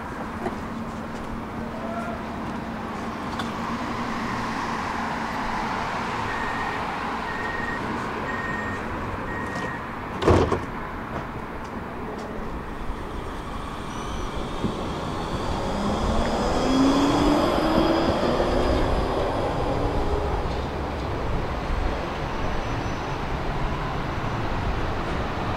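Tram at a stop beside street traffic: a short series of warning beeps, a single loud clunk about ten seconds in, then a rising electric motor whine as the tram pulls away, over the steady noise of city traffic.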